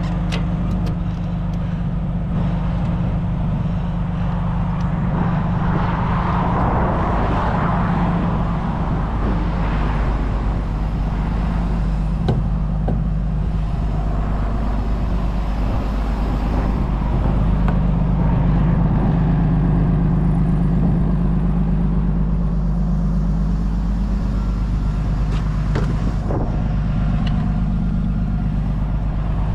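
Pickup truck's engine idling steadily, with road traffic passing and a couple of clicks near the end.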